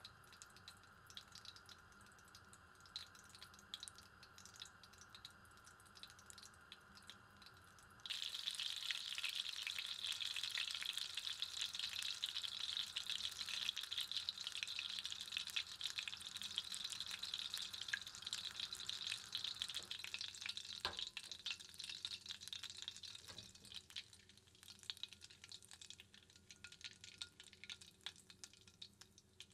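Butter sizzling and crackling in a small enamel saucepan as it browns into brown butter. Faint, sparse crackles at first, then much louder, dense sizzling begins suddenly about eight seconds in. It thins out and fades toward the end as the butter darkens.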